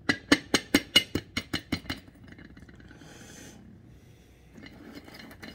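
A small metal knife tapping rapidly around the top of a soft-boiled egg's shell, about a dozen quick sharp clicks in under two seconds, cracking the shell so the top can be taken off.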